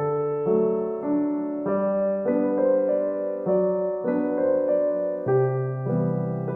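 Background music: a gentle piano tune, its chords changing about every half second.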